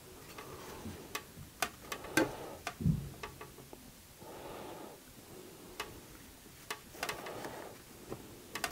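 Scattered light clicks and taps from plastic toy parts being handled, irregular and a few to a second, with soft breathing in between.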